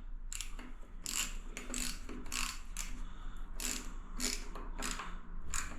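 Ratcheting driver with a hex (Allen key) bit clicking in short runs, about one every half second, as it winds in the small hex screws of a toilet roll holder.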